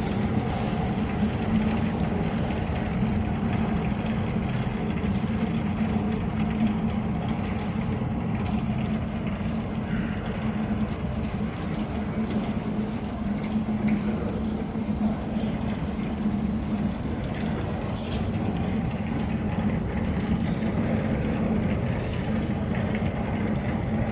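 Steady low rumble of vehicle noise with a constant low hum and no sharp events.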